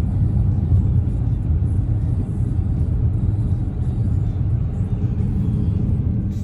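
Steady low rumble of road and engine noise heard inside the cabin of a 2018 Dodge Challenger driving on a highway.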